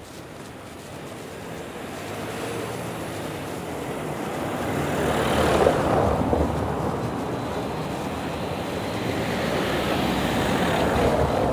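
Car driving slowly over a cobblestone street toward the listener, engine and tyre noise swelling. It is loudest about halfway through and again near the end.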